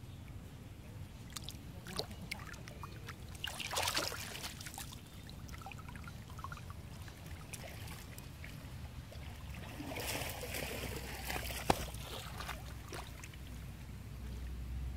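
Water splashing and lapping as macaques swim and move about in a pond, in two stronger spells of splashing, about four seconds in and again around ten to twelve seconds. A single sharp click, the loudest sound, comes between them near the twelve-second mark.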